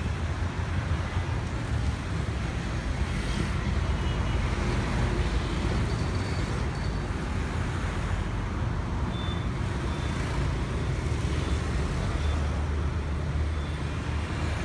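Steady city road traffic: a stream of motorbikes and cars passing on a busy boulevard, with a constant low rumble.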